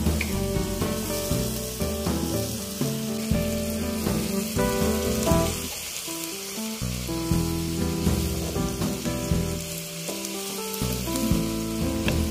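Bean sprouts, corn and fried tofu sizzling as they are stir-fried in a wok, with a wooden spatula scraping and tossing them now and then. Background music with held chords plays underneath.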